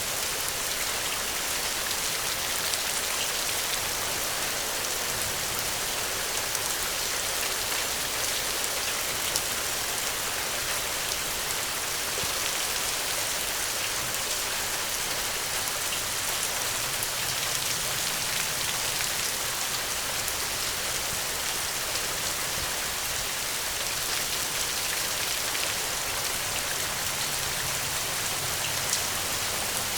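Steady rain falling on the ground, a dense even hiss with scattered individual drop ticks.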